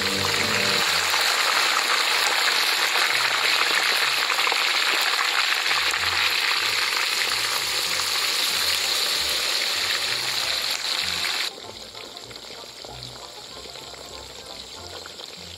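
Hot oil sizzling and bubbling hard around a whole mongoose deep-frying in a wok with lemongrass stalks. About three-quarters of the way through the sizzle drops abruptly to a quieter level.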